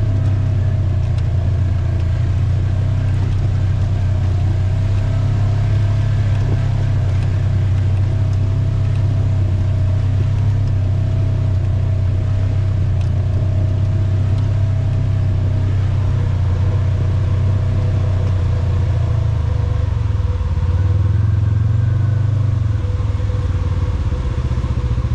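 Quad (ATV) engine running steadily at trail speed, its pitch rising briefly with a little more throttle about twenty seconds in.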